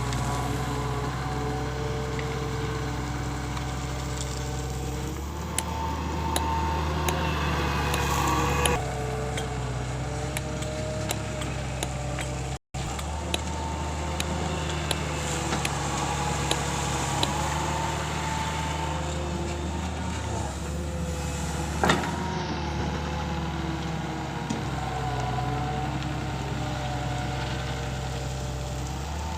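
Excavator's diesel engine running steadily under load, with a pitched whine that rises and falls every few seconds as the machine works. There are scattered light ticks and one sharp knock about two-thirds of the way through.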